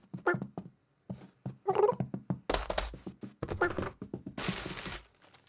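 Cartoon cat's short meows and cat noises, with a thump and a burst of noise near the middle and a second burst of noise near the end.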